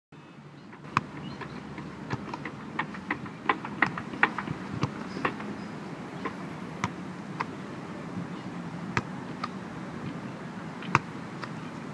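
A football being struck back and forth between two players on grass: irregular sharp knocks, bunched in the first few seconds and sparser later, over a steady outdoor background rumble.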